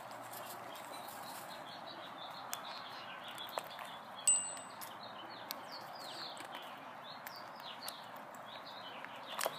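Caged cockatiels chirping softly, a steady run of many short falling chirps, with scattered sharp clicks. About four seconds in, a short high ringing note stands out as the loudest sound.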